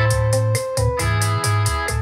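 Music with a quick steady beat, a pulsing bass line and a held keyboard tone, played back through a Dockin D Fine+ Bluetooth speaker.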